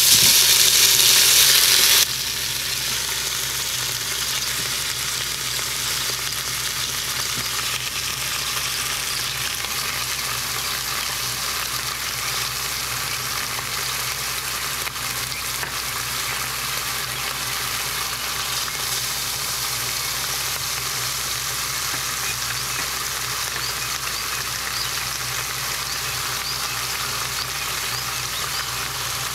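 Pork shoulder pieces searing in hot grapeseed oil in an Instant Pot's stainless steel inner pot on the sauté setting. The sizzle is loud for the first two seconds as the meat goes in, then drops suddenly to a lower, steady sizzle.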